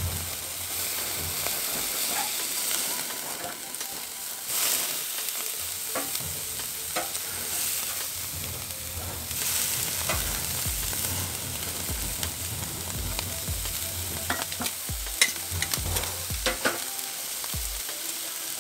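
Beef burger patties and streaky bacon sizzling on a charcoal barbecue grate over lump wood coals, with a few sharp clicks of metal tongs near the end as the meat is turned.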